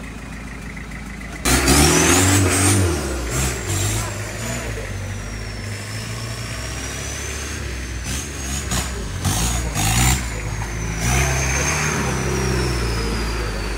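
Off-road Nissan Patrol's engine revving hard, cutting in suddenly about a second and a half in and surging repeatedly, with a thin high whine that rises and then slowly drifts lower.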